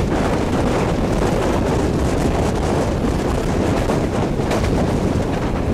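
Wind buffeting the microphone held out of a moving train's window, over the steady running noise of the train.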